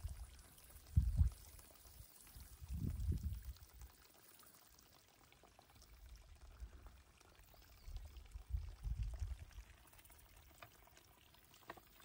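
Wind buffeting the microphone: irregular low rumbles, loudest about a second in, around three seconds in and again around nine seconds, over a faint steady hiss.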